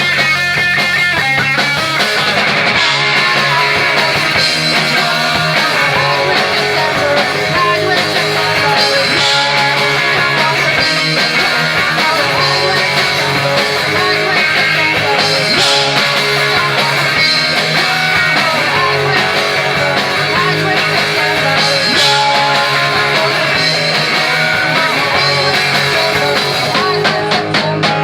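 Punk rock band playing live, with electric guitar, loud and continuous.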